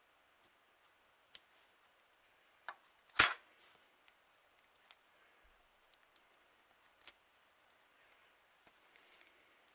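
A few sharp, isolated clicks and taps in a small quiet room, with one much louder snap about three seconds in.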